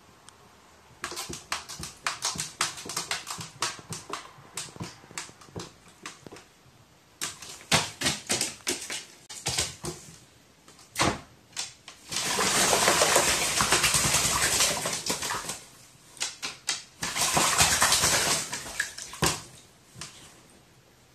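Pet crow bathing in water: scattered short splashes and flicks, then two bouts of fast, heavy splashing as it flaps its wings in the water, the first about twelve seconds in and lasting a few seconds, the second shorter a few seconds later.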